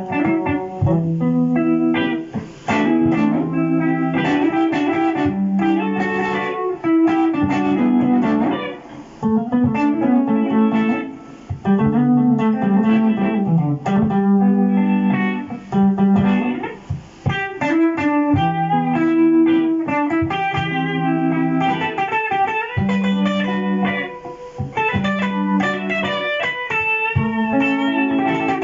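Electric guitar played through a Boss GT-100 multi-effects processor, a looped low riff repeating under improvised single-note jazz lines.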